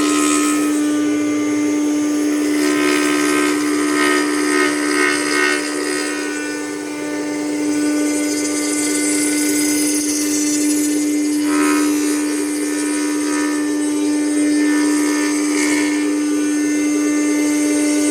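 4-axis CNC router's spindle running with a steady high whine while its bit carves wood, the cutting noise swelling and easing as the tool moves.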